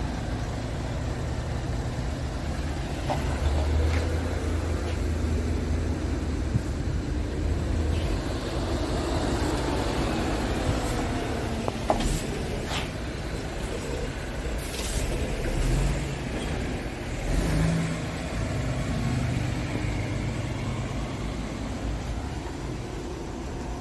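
Scania R450 tractor unit's 13-litre straight-six diesel idling steadily, with a couple of brief air hisses around the middle.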